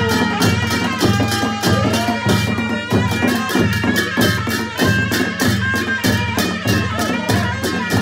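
Music: a melody over a low pulsing bass and a steady beat.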